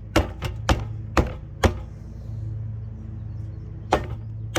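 Lasko box fan's electric motor humming steadily, with a sharp clack about twice a second that stops for about two seconds and then comes back near the end.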